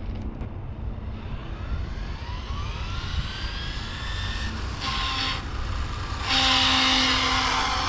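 A dual-motor brushless 1/7-scale RC speed-run car on a top-speed pass. Its motor whine climbs in pitch as it accelerates, then it is loudest for about a second and a half near the end, the whine dropping in pitch as it goes by.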